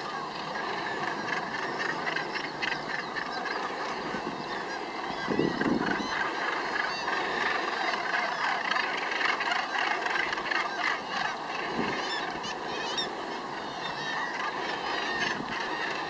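Northern gannet breeding colony: a constant din of many birds calling over one another with harsh, honking cries from the cliff ledges. A brief low rumble about five seconds in.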